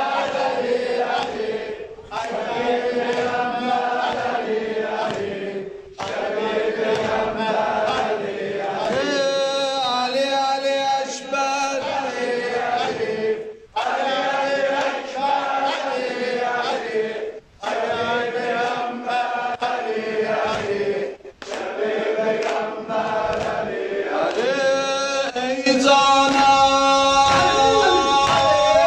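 A group of men chanting a Muharram mourning lament (noha) together, in sung phrases of a few seconds broken by short pauses. The chant grows louder in the last few seconds.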